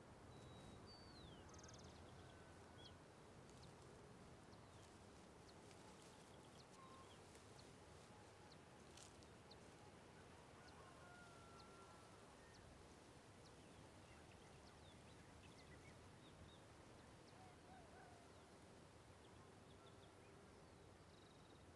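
Near silence: faint outdoor hillside ambience with a few brief, distant bird chirps scattered through it.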